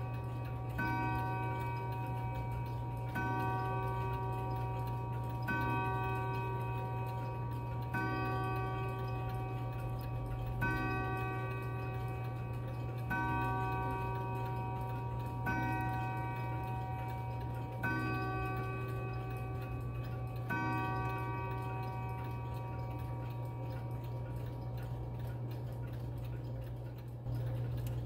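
Howard Miller 612-365 triple chime mantel clock striking the hour on its chime rods: a slow count of the same ringing note, one stroke about every two and a half seconds, each fading over about two seconds. The last stroke comes about 21 s in and rings out, over a steady low hum.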